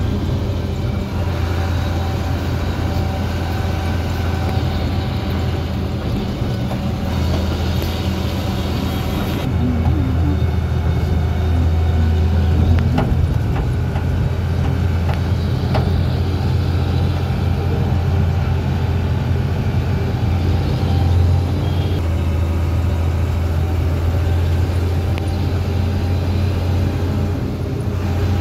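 A moving vehicle's engine drone and tyre noise heard from inside the cab: a steady low hum with road noise above it and a few light knocks midway.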